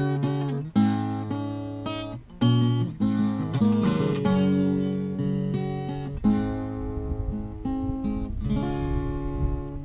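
Acoustic guitar played solo, chords strummed and left to ring, changing every second or two with an occasional slide into the next chord.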